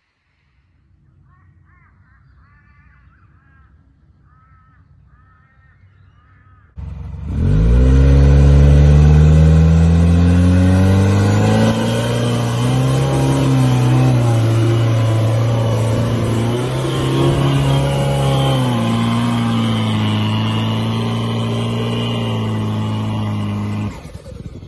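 The Toyota Prado's 1KD-FTV four-cylinder turbo-diesel comes in suddenly about seven seconds in, rises in pitch as it revs, then runs on steadily with small shifts in pitch before stopping abruptly near the end.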